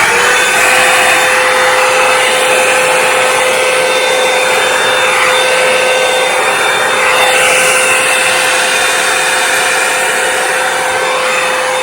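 Revlon One-Step hair dryer brush running steadily: a loud rush of fan noise with a constant whine from its motor.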